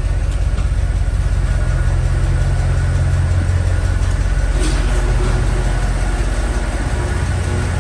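Mercedes-Benz M156 6.2-litre V8 of a 2008 S63 AMG idling steadily and smoothly, just after starting; the engine is hard to start when cold but runs smoothly once it catches. A short click sounds about halfway through.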